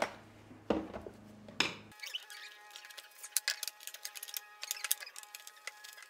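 Plastic clicks and knocks as a Roomba robot vacuum is handled and turned on a wooden floor, then many small sharp ticks and clinks of a screwdriver working the screws on its underside, over a faint steady hum.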